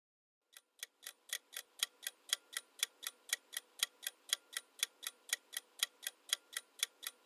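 Clock-tick sound effect of a quiz countdown timer, sharp even ticks at about four a second, starting about half a second in.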